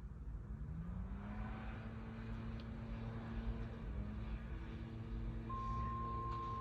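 Distant outdoor warning sirens winding up from a low pitch and settling into a steady tone in the first second or two: the start of the steady alert signal in a siren test. Near the end a second, higher steady siren tone joins in.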